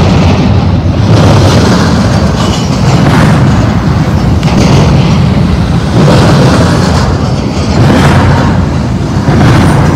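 Double-stack intermodal well cars rolling past close by: a loud, deep rumble of steel wheels on the rails with a noisy clatter that swells and eases every second or two.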